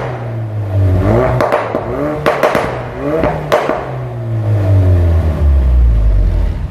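Ford Focus RS Mk3's 2.3-litre turbocharged four-cylinder engine revved in short blips, with sharp pops and crackles from the exhaust as the revs rise and drop. In the second half the revs fall away slowly.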